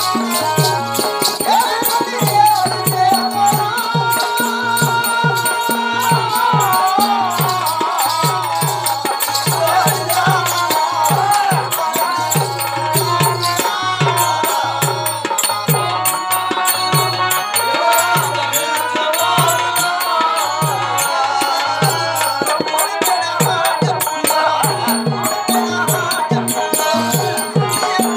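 Live Indian folk instrumental music: a drum keeps a steady beat of about two strikes a second under a wavering melody, with constant jingling clatter on top.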